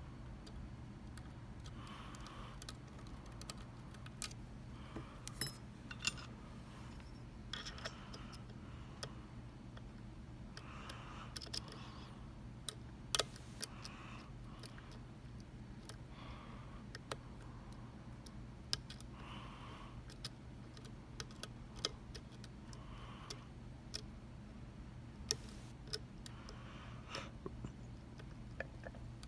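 Lock picks working the pins of a Mul-T-Lock MT5 dimple lock: scattered, irregular small metallic clicks and light scrapes.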